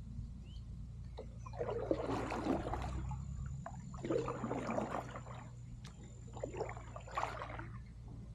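Kayak paddle strokes in river water: three splashing dips about two seconds apart.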